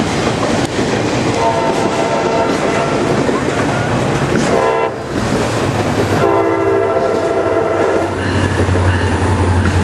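CSX freight train of auto rack cars passing close by with a loud, steady rumble and wheel clatter. A multi-chime train horn sounds twice, about a second in for three seconds and again about six seconds in, and a locomotive's low engine drone rises near the end.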